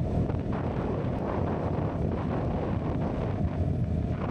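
Heavy wind noise buffeting an action camera's built-in microphone at road speed, over the steady running of a CFMOTO 250NK motorcycle's single-cylinder engine.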